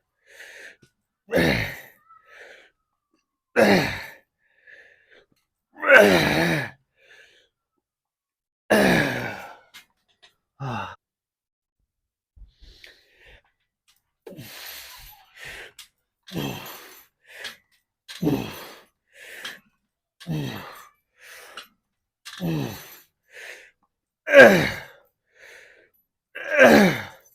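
A man's strained exhalations and groans while pushing through weight-training reps. Each is a short voiced breath that falls in pitch. Loud ones come every two to three seconds, then a quicker, quieter run about one a second through the middle, and two more loud ones near the end.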